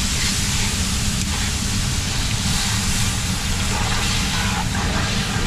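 Vegetables sizzling as they fry in hot fat in a pan, a steady hiss over a constant low hum.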